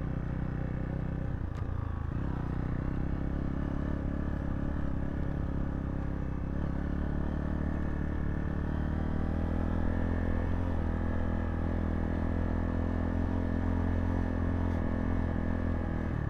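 Zontes T2 350 single-cylinder motorcycle engine running steadily under way, its pitch dipping briefly about a second in and then holding even.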